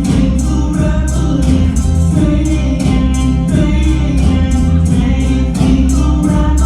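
Recorded music with singing over heavy bass and a steady, quick beat of high percussion, played loud through a sound system during a sound check.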